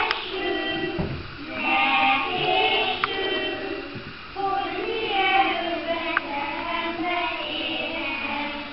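A group of small children singing a song together in phrases, with short breaths between them.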